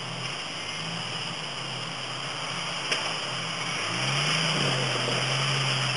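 Engine of a red off-road 4x4 running on a rocky trail; about four seconds in it picks up throttle with a quick rise in pitch and then runs louder and steadier. A single sharp click comes about three seconds in.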